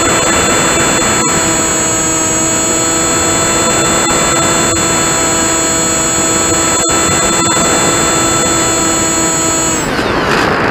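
Model airplane's motor and propeller running at a steady throttle: a steady whine over wind rush on the onboard microphone. Near the end the whine drops away as the motor is cut, leaving only wind rushing past the airframe.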